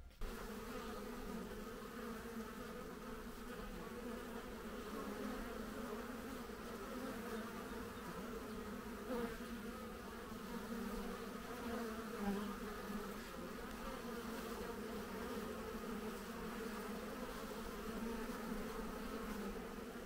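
Honeybees buzzing at a hive entrance: a steady hum of many bees flying in and out, with a couple of brief louder moments near the middle.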